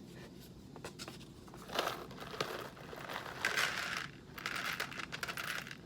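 Coffee bag crinkling and rustling in uneven bursts as it is handled, with scattered small clicks.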